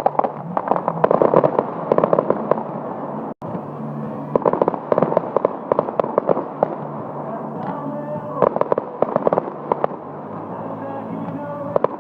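Fireworks crackling in several clusters of rapid pops, over music that plays steadily underneath.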